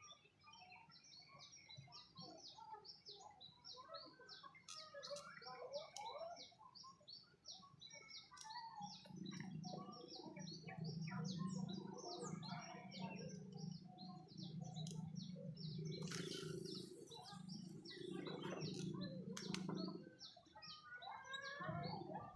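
Many birds chirping in quick, dense twitters. About nine seconds in, a low pulsing hum joins them, with a brief rush of noise a little later.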